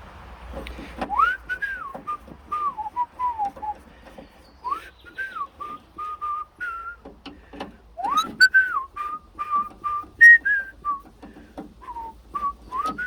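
A person whistling a tune in short phrases of gliding and held notes, over light clicks and taps from hand tools on the door hardware.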